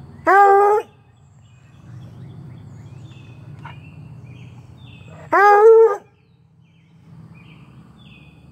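Treeing Walker Coonhound puppy giving two loud barks about five seconds apart. Each is a short, ringing bay that rises in pitch at the start and then holds.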